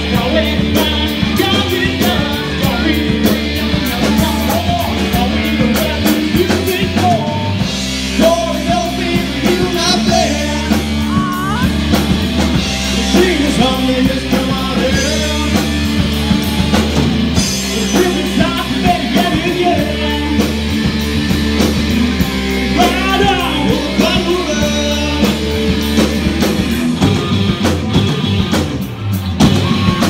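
Live rock band playing loud: electric guitars, bass and a drum kit, with sung vocals.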